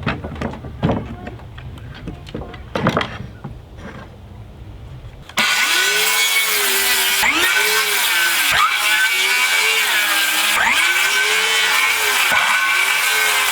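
Power saw cutting through a sheet of OSB. It starts suddenly about five seconds in and runs loud and steady until it stops just before the end, its pitch sagging and recovering several times in the cut. Before it come a few quiet knocks and handling sounds.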